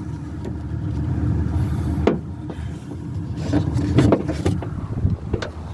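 A few knocks and clicks of the replacement door handle and its parts being worked into a car door, the loudest about two seconds in and again about four seconds in, over a steady low rumble.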